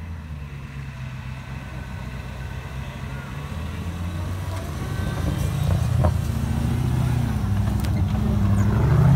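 Engine of a roll-caged Land Rover trials vehicle running at low revs as it crawls down a steep bank, growing steadily louder as it comes close. A couple of sharp knocks come about six and eight seconds in.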